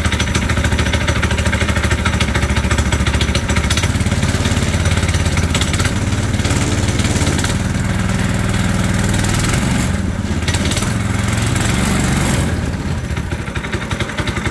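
Small single-cylinder gas engine of a track sled running cold, with a little throttle given: the engine does not like the cold. Its note shifts in the middle and the running drops back and quietens near the end.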